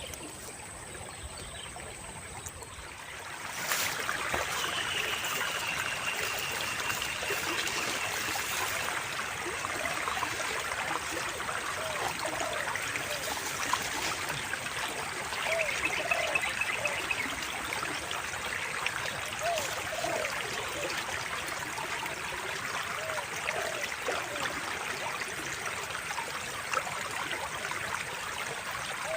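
Small stream of water flowing and trickling steadily, getting louder about four seconds in.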